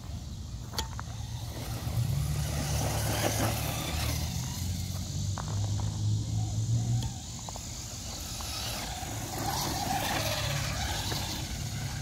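Traxxas Slash 4X4 Ultimate electric RC truck driving across grass, its motor whine rising and falling as it speeds up and slows. A few sharp clicks and a steady low rumble run underneath.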